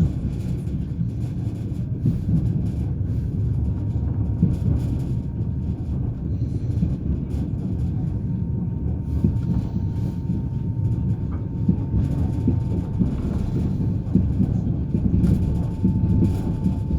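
Passenger train running steadily, a low rumble with irregular clacks of the wheels over rail joints and a faint steady whine.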